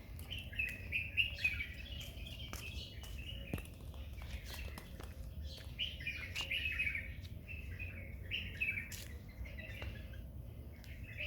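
Small birds chirping in bursts of quick high twitters, with a few sharp clicks scattered among them.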